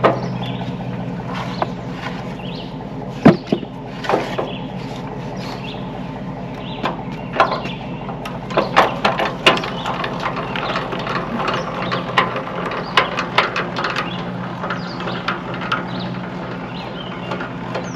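A jack being worked to lift the front end of a portable sawmill: irregular metallic clicks and clanks, the sharpest about three seconds in and coming thicker in the middle of the stretch, over a steady low hum.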